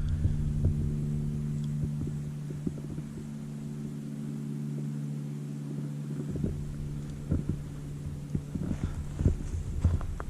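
A steady low hum with several even overtones, its source unclear, under irregular soft thumps of footsteps and microphone handling while walking.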